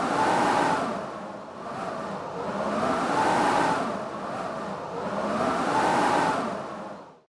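Howling blizzard wind: a rushing gale that swells and eases about every three seconds, with a whistling tone rising and falling on each gust, cutting off abruptly near the end.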